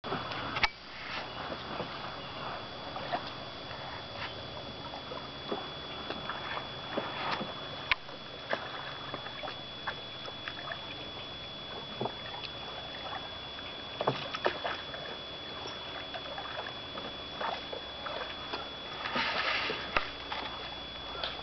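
Oars dipping and pulling through calm water as a Phil Bolger Nymph plywood pram dinghy is rowed, with scattered soft splashes and clicks from the strokes over a steady hiss.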